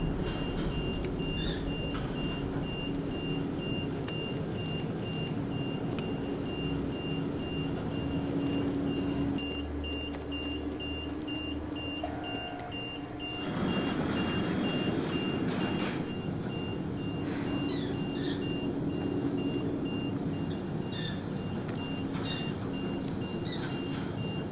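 A steady run of short, high electronic warning beeps over a low mechanical drone. About halfway through, a louder rushing noise swells for a couple of seconds.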